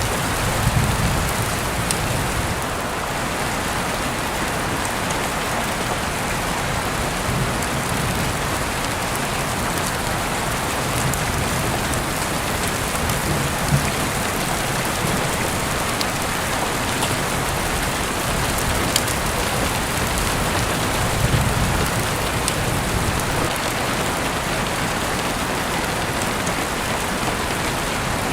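Steady, dense rain falling on surfaces. A few low rumbles swell up about a second in, around the middle and near the end, and there are occasional sharp clicks.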